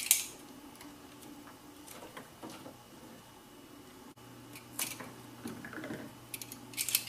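Light handling noises of hands working in a car's engine bay and with a roll of double-sided mounting tape: scattered clicks and scratchy rustles, the sharpest right at the start and a quick cluster near the end.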